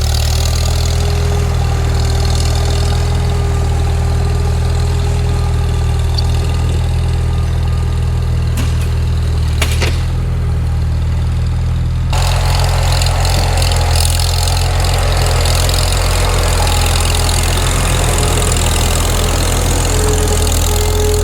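Farmall Super M tractor's four-cylinder engine running steadily, with a few sharp clicks about nine to ten seconds in. The sound changes abruptly and grows fuller about twelve seconds in.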